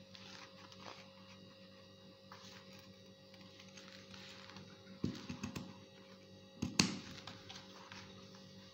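Pinking shears snipping through layered skai faux leather and fabric in short clicking cuts, with a cluster of louder snips about five seconds in and the loudest one near seven seconds.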